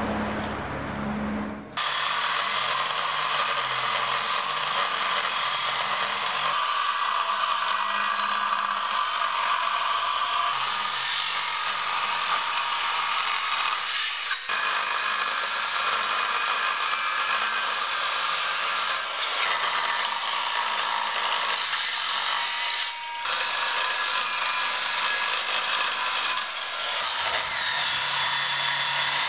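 Angle grinder cutting into the cast-on lump on top of a bronze church bell, a steady grinding of the disc in bell metal. It starts about two seconds in and has two brief breaks.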